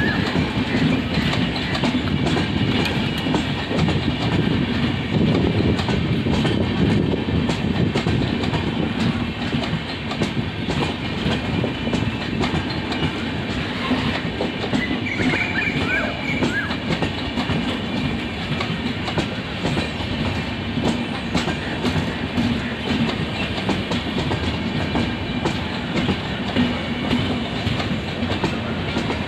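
Red-and-grey LHB passenger coaches of the Mysore–Tuticorin Express rolling past close by. The wheels clatter steadily over the rails over a continuous low rumble.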